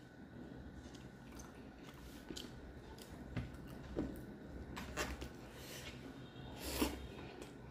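Close-miked eating sounds: chewing and wet mouth clicks, with fingers squishing rice and fish curry on the plate. The loudest smack comes near the end as a handful of rice goes into the mouth.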